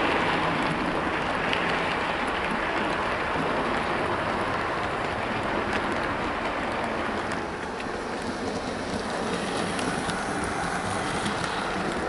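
Model train running on the layout's track: a Bachmann Caledonian Railway 812 Class locomotive hauling a rake of Hornby LMS Stanier coaches, giving a steady rolling noise of wheels on rail. The noise drops a little about two-thirds through, then builds again as the coaches come round the curve.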